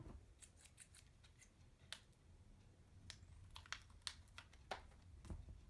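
Scissors snipping and clicking at a candy wrapper: about a dozen faint, sharp clicks, spaced unevenly, as the blades struggle to cut through it.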